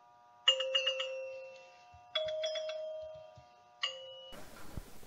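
A bell-like chime jingle: three clusters of quick struck notes, each ringing out, about a second and a half apart over a soft held chord. It cuts off sharply near the end.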